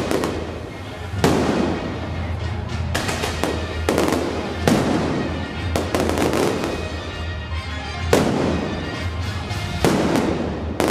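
Fireworks display: several loud bangs from bursting shells, each followed by dense crackling from the sparks and fountains.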